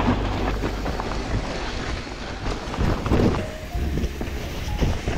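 Wind buffeting a helmet-camera microphone over the rolling rumble and rattle of a mountain bike riding down a dirt trail.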